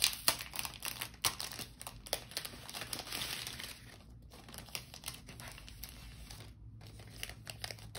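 Plastic packaging of a pack of die-cut cardstock ephemera crinkling and rustling as it is handled and opened by hand, with a quick run of small clicks and crackles.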